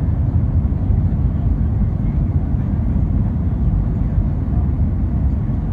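Steady low rumble of an Airbus A320's engines and rushing airflow heard inside the cabin over the wing, on final approach with the flaps extended.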